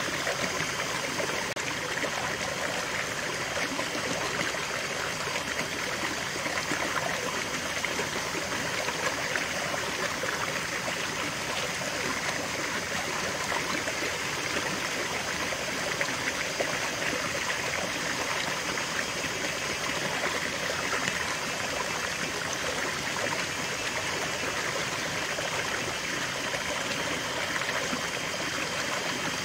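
Small stream running over rocks in a low cascade into a shallow pool: steady splashing and trickling of running water.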